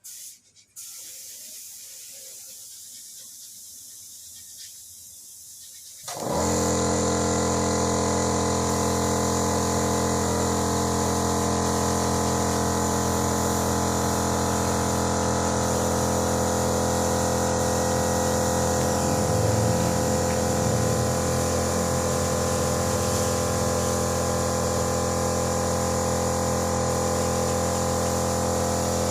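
Small electric air compressor for spray painting switches on about six seconds in and runs steadily with a constant motor hum and air hiss.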